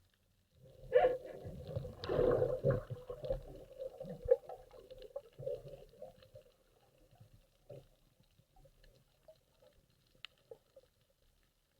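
Water gurgling and bubbling, loudest for the first few seconds and then fading away, leaving a few faint ticks.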